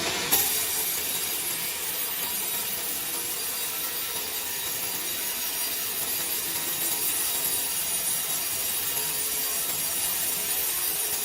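Wood being cut by a woodworking machine: a steady, unbroken hiss with a sharp click just after the start.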